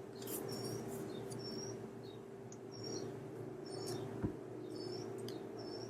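Faint, short high-pitched chirps repeating about once a second over a low steady hum.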